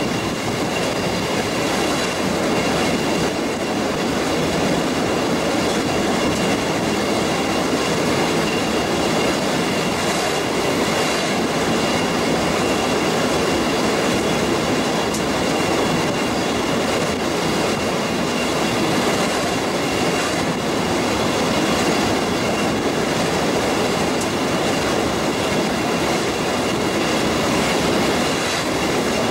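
Train running across a bridge, heard from on board: steady rolling noise of wheels on rails, with a faint high steady tone over it.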